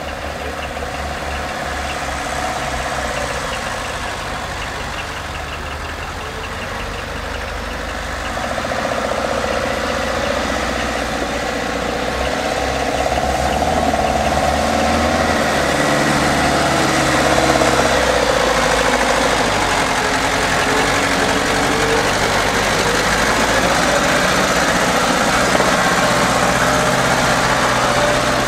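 Unimog 421's diesel engine running at low speed as the truck crawls over rough off-road ground, its pitch rising and falling with the throttle. It is heard from inside the cab at first and gets louder partway through.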